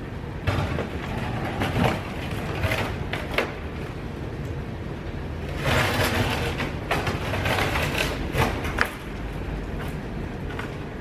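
Wooden pallet boards knocking and scraping against a metal drum as they are laid across its top, in three spells of clatter, the longest from about 6 to 9 seconds in. A steady low rumble runs underneath.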